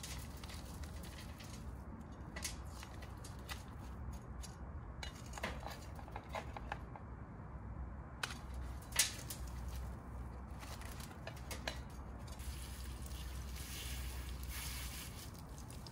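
Hands working potting soil around a plant in a soft plastic nursery pot: scattered rustles and small clicks, with one sharper click about nine seconds in. From about twelve seconds a garden hose spray nozzle hisses as it waters the newly potted plant. A steady low hum sits underneath.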